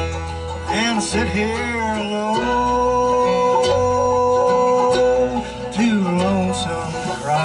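Live bluegrass band: a man sings the lead, holding one long note through the middle of the line, over strummed acoustic guitar, banjo and bass.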